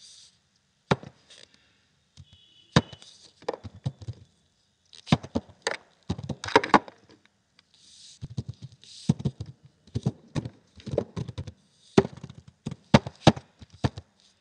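Computer keyboard typing: irregular, fairly loud keystrokes, with quick runs of several keys in a row and short pauses between them.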